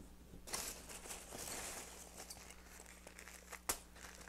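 Plastic wrapping crinkling and packing peanuts rustling as a bagged part is lifted out of a box of peanuts and handled, with a single sharp click near the end.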